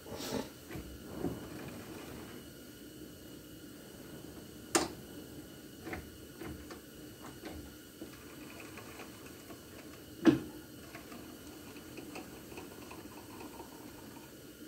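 Scattered metallic clicks and knocks from a boring bar and tool post being adjusted by hand on a mini metal lathe while centre height is set, with two sharper knocks about five and ten seconds in.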